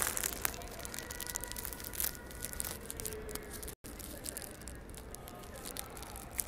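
Outdoor ambience of indistinct distant voices, with crackling and rustling from clothing rubbing against the phone's microphone. The audio cuts out for an instant a little past halfway.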